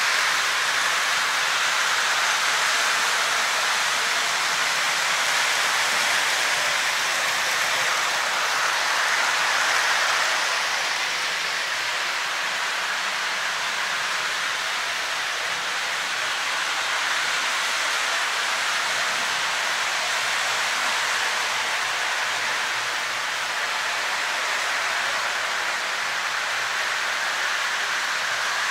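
Model train running on its track loop: a steady rolling whir, a little quieter after about ten seconds.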